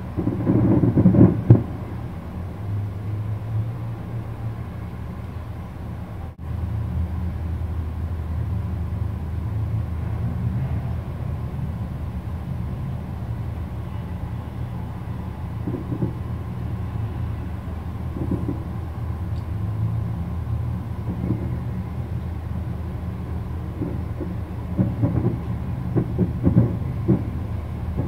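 Distant fireworks: aerial shells bursting as dull, rumbling booms. There is a loud cluster about a second in, scattered single thuds, and a quick run of several bursts near the end, all over a steady low rumble.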